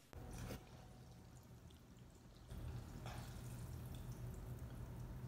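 Quiet room tone with a low steady hum that comes in about two and a half seconds in, and a couple of faint, brief noises.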